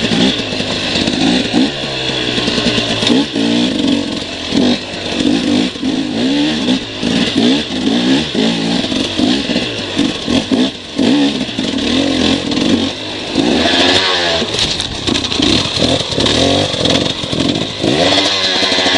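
Off-road vehicle engines revving, their pitch climbing and dropping over and over as the throttle is worked.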